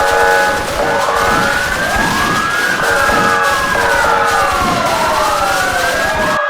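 Several emergency-vehicle sirens wailing at once, each slowly rising and falling in pitch, overlapping out of step with one another. They sound over a loud, dense noisy background with a few steady tones coming and going. The background cuts off suddenly near the end, leaving only the sirens.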